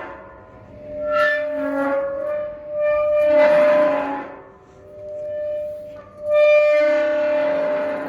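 Rusty metal gate hinge creaking as the gate swings. There are about four long, pitched squeals, one after another, each swelling and fading; the last is the loudest and longest.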